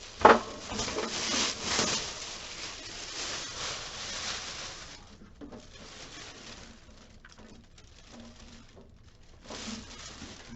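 Rustling and handling of packaging while a cash drawer is unpacked, with a sharp knock just after the start. The rustling stops about five seconds in, leaving faint handling noise, and a short rustle comes again near the end.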